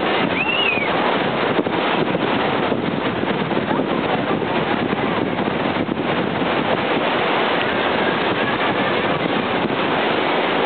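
Wind buffeting the microphone over breaking surf, a steady loud rushing noise. Two short high squeaky calls sound in the first second.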